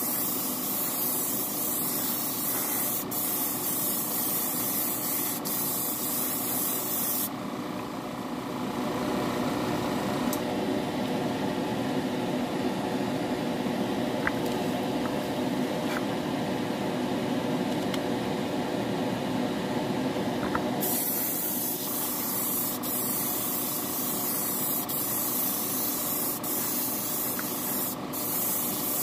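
Airbrush hissing as it sprays clear coat onto a model car body; the hiss stops for about fourteen seconds in the middle, then starts again. A steady motor hum runs underneath throughout.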